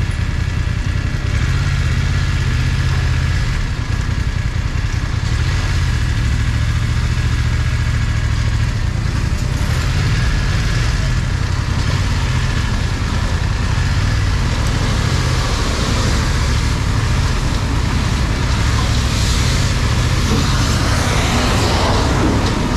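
Motorcycle engine running at low speed in low gear through slow traffic, over the steady noise of cars on a wet street, with the hiss growing louder near the end.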